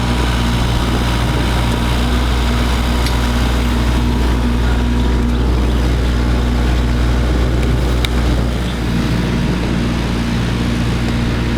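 Engine running steadily at a constant speed, with an even low hum, while the service-line puller draws the old pipe out; it eases off slightly about eight seconds in.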